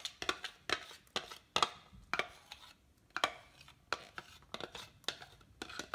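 Metal spoon knocking and scraping against a blender jar and the rim of a stainless steel pot while thick puréed asparagus and garlic is worked out of the jar. Irregular sharp clicks and taps, a couple a second.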